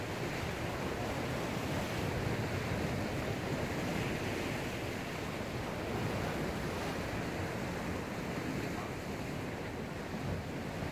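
Choppy sea surging and washing back over a rocky shore: a steady wash of surf that swells and eases.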